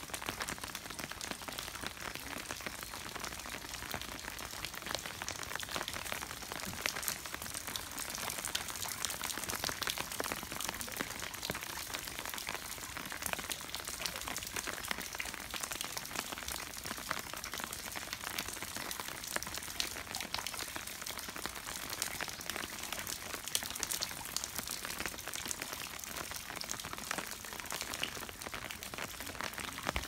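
Steady rain pattering and dripping off a temple roof's eaves: a constant hiss dense with small drop ticks.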